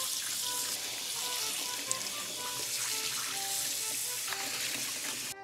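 Kitchen tap water running into a stainless steel sink and splashing over a gutted yellowtail as fingers rub back and forth inside the belly cavity, washing out the last of the blood. Soft background music plays underneath.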